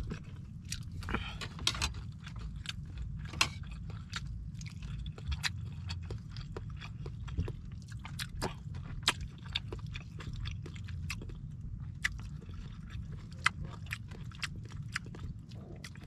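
Close-up chewing and eating: many small, sharp mouth clicks and smacks scattered irregularly, over a steady low background noise.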